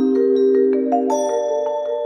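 Instrumental background music: struck, ringing pitched notes over held tones, with a new chord about a second in.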